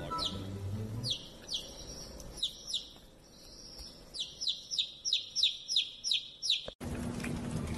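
Baby chick peeping: a run of high, falling peeps, sparse at first and then about three a second, cut off suddenly near the end. A steady hiss follows.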